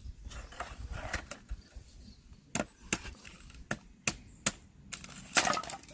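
Irregular sharp wooden knocks and cracks, about nine, the loudest near the end: firewood being split or broken up for a campfire.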